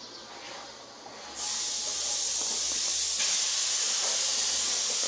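Faint scattered clicks, then about a second and a half in a loud steady hiss starts abruptly and runs on.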